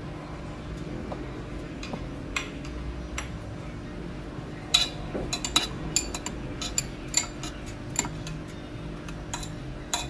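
Metal spoon stirring oatmeal in a ceramic bowl, clinking against the bowl: a few light clinks at first, then a quicker run of clinks from about halfway.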